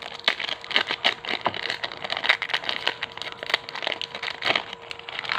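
Thin foil booster-pack wrapper crinkling and crackling as it is handled, a dense run of sharp irregular crackles.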